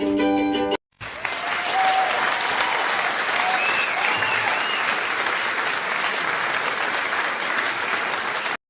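Crowd applause, a dense steady clapping that starts abruptly about a second in, right after a cut from plucked-string music, and stops just as abruptly near the end.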